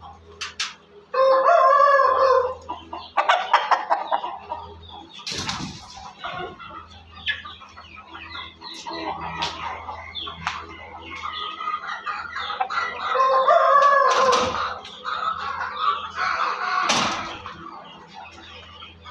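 Ayam Cemani chickens in a coop: a rooster crows loudly several times, about a second in, again near the middle and just after, while hens cluck softly in between. A few sharp clicks are heard among the calls.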